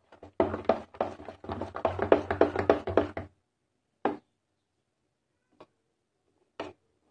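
Hand beating thick idli batter in a steel bowl: a rapid run of slaps and knocks for about three seconds, then a few single knocks spaced a second or more apart.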